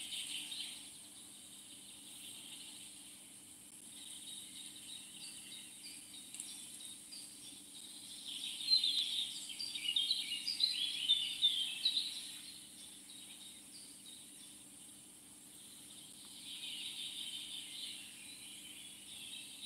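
Wild birds chirping in quick runs of short calls, busiest about halfway through and again near the end, over a steady high insect drone.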